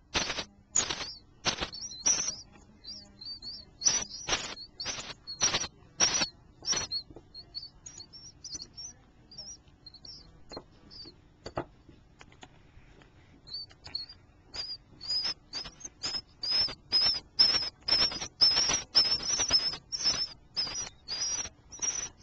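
Baby birds chirping in short, high, repeated calls. The calls come thick at first, thin out to soft scattered peeps in the middle, then return steadily at about two a second and grow louder toward the end.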